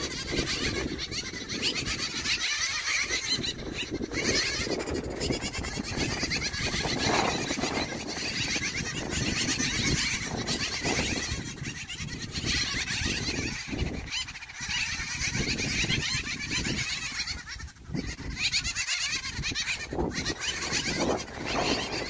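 Continuous, overlapping animal calls with a few brief lulls.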